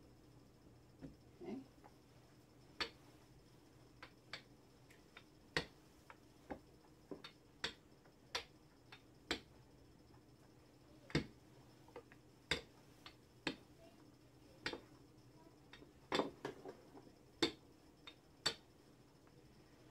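Rolling pin clicking and knocking at irregular intervals as dough is rolled out on a floured granite countertop, about one sharp click a second, some in quick pairs.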